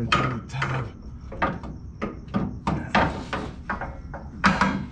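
Irregular knocks and clunks of metal as a front coil spring is worked into its seat in the suspension.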